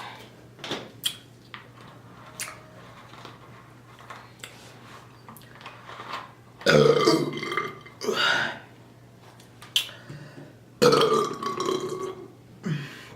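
A person belching loudly after drinking fizzy soda: a long burp about seven seconds in, a shorter one right after, and another long burp about eleven seconds in, with a few small clicks before them.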